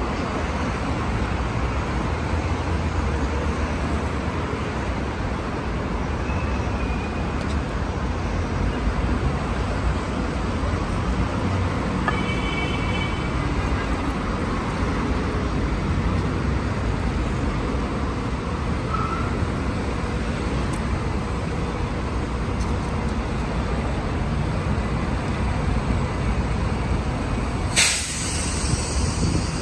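Steady city street traffic noise, with a brief high-pitched tone about twelve seconds in and a sharp knock near the end.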